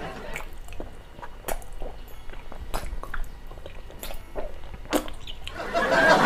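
Close-up chewing of a mouthful of giant gummy worm candy: wet, sticky smacking and clicking mouth sounds at irregular intervals, with a few louder smacks.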